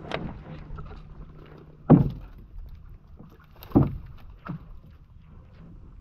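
Canoe being paddled: paddle strokes and knocks, with two sharp thumps louder than the rest, about two seconds in and nearly four seconds in.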